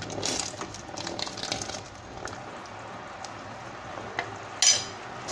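Thick cornstarch-thickened pineapple syrup bubbling and popping in a stainless steel pot while a spoon is stirred through it. A short, louder noise comes near the end.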